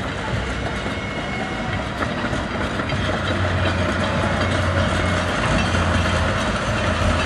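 Narrow-gauge park train locomotive running past with its passenger cars: a steady low engine drone with rail noise, growing slightly louder as it approaches.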